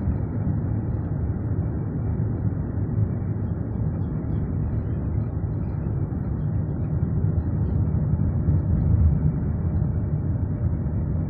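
A car driving over a rough dirt track: a steady low rumble of engine, tyres and body, with no gear changes or revving.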